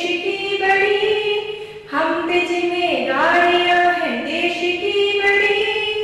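A woman singing solo into a handheld microphone: long held notes that slide between pitches, in two phrases with a short breath about two seconds in.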